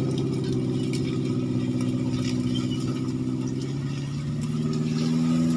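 Engine-swapped Suzuki Jimny off-roader running at low, steady revs as it crawls closer along a grassy trail, its pitch dipping slightly past the middle and rising a little near the end.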